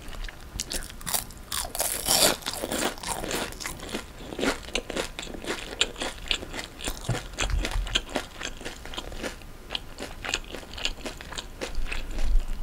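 Crisp, crackly crunching and chewing of a deep-fried Vietnamese spring roll (chả giò), picked up close to the mouth, with a loud bite about two seconds in.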